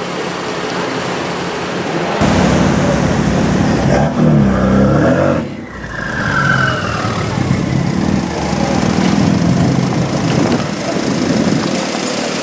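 BMW M2 Competition's twin-turbo straight-six, tuned to 690 hp, running through a Remus exhaust. It gets louder about two seconds in and revs with climbing pitch, drops off briefly near the middle, then pulls again.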